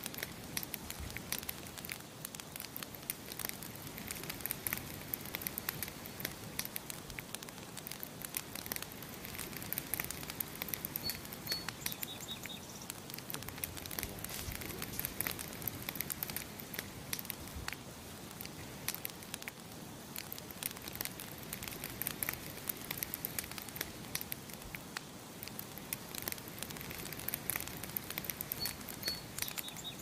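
Campfire crackling steadily with many sharp pops. A short high bird chirp comes twice, about eleven seconds in and again near the end.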